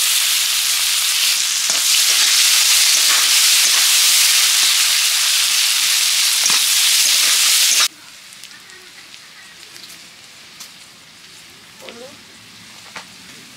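Sliced onions sizzling loudly in hot oil in a kadai, with a few scrapes of a metal spatula stirring them. About eight seconds in, the loud sizzle cuts off abruptly, leaving a much fainter frying hiss with a few light clicks and scrapes.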